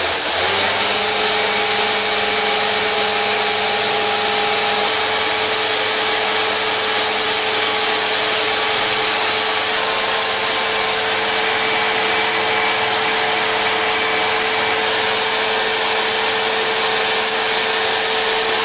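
Corded electric drill switched on and running steadily, spinning a kite-string spool clamped in its chuck to wind string onto it: a constant motor whir with a high fan hiss.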